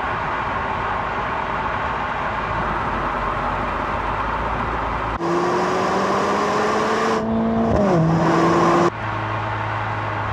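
Mercedes-AMG A45 S's 2.0-litre turbocharged four-cylinder on the move. First comes steady road and engine noise. About five seconds in, the engine note climbs slowly under acceleration, falls sharply near eight seconds and holds at a lower pitch, then gives way to a steady low hum.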